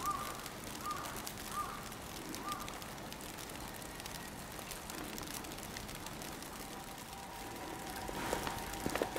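Faint, steady outdoor ambience with a few short high chirps in the first couple of seconds. From about seven and a half seconds in, a distant ambulance siren's two-note wail comes in faintly, with a few soft knocks near the end.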